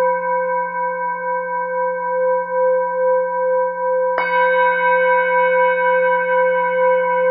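Background meditation music of sustained, ringing singing-bowl tones over a low steady drone. About four seconds in a fresh strike rings out, adding brighter higher tones.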